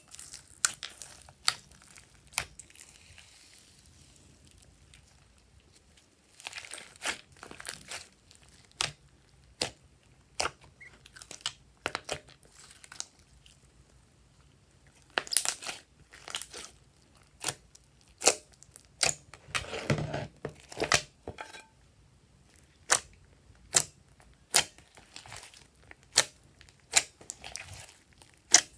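Slime being kneaded and squeezed by hand: irregular sharp clicks and pops as air pockets burst, with crinkly stretching in between and a fuller squelch about two-thirds of the way through.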